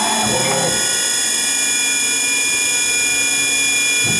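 Spindle of an SNK Prodigy GT-27 CNC gang tool lathe running at a steady speed under a program, a constant high-pitched whine made of several tones.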